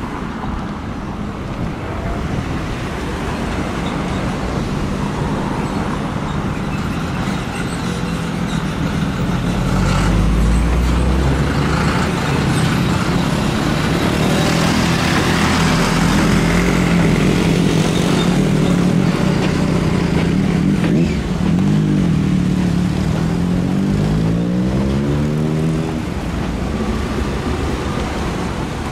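Britten-Norman Islander's twin engines and propellers running as it lands and rolls out, growing louder toward the middle as it nears, with the tone wavering and sweeping near the end as it rolls past.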